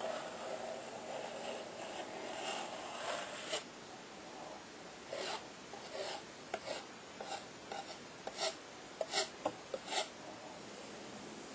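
Palette knife scraping and spreading paint across a canvas: one long continuous scrape over the first few seconds, then a string of short, sharp strokes and dabs, loudest near the end.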